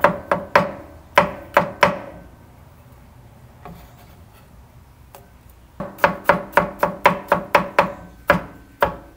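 Broad-bladed knife chopping garlic on a wooden cutting board: sharp knocks at about three a second for two seconds. A quiet pause follows while the pieces are pushed together, then another run of quick chops starts about six seconds in.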